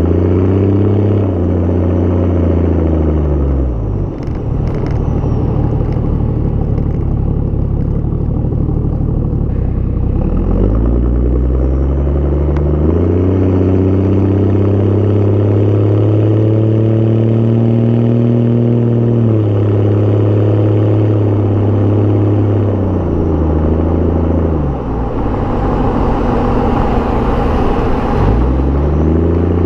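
2.5-inch straight-pipe exhaust of a Toyota Land Cruiser HDJ81's 1HD-T turbo-diesel straight-six, heard right at the tailpipe while driving. The engine note falls away, then rises under acceleration and holds, drops again, and climbs once more near the end.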